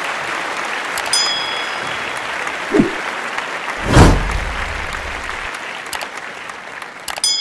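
Sound effects of an animated subscribe-button outro over a steady hiss of applause. A click and a bright ding come about a second in, with another ding near the end. A short falling swoop comes just before three seconds, and a loud whoosh at about four seconds as the particle burst sweeps across.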